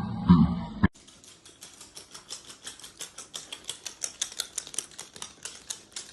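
A louder sound cuts off abruptly about a second in, followed by a quiet, quick run of light clicks, several a second.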